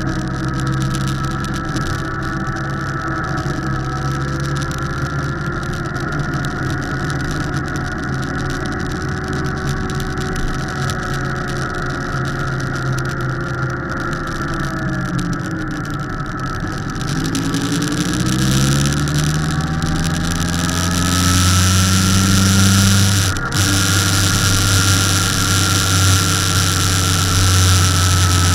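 Motorcycle engine running as the bike rides a winding road, with rushing wind. About two-thirds of the way in the engine note dips and then climbs as it accelerates and gets louder, with a momentary drop in the sound shortly after.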